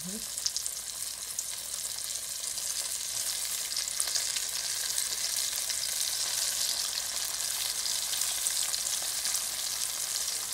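Flour-dusted fish frying in hot oil in a wok: a steady, high sizzle that grows a little louder a few seconds in as more pieces are laid into the oil.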